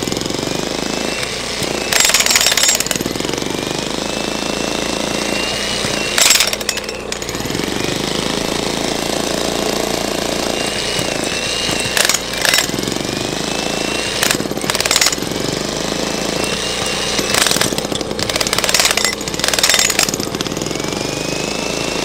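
Jackhammer hammering its bit down into the ground in a steady, rapid pounding, with several brief louder bursts along the way.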